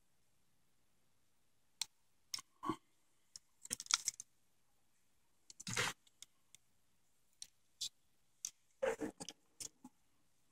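Irregular small plastic clicks, taps and short scrapes from handling a GM E38 PCM wiring-harness connector and working a thin pick tool into it to release the terminal pins. The clicks are scattered throughout, with short clusters of rustling about four seconds in, just before six seconds, and near nine seconds.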